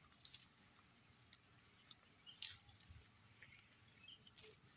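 Near silence: faint outdoor hiss with a few scattered soft clicks and crackles.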